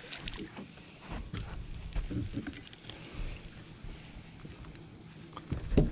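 Scattered low knocks and small clicks of gear being handled in a fishing boat, with a louder thump near the end.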